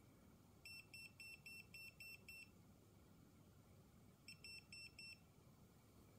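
UNI-T UT12M voltage detector in its magnetic-field mode beeping as a small magnet is held to its tip: a run of about seven short high beeps at about four a second, a pause, then four more, each run signalling a detected magnetic field.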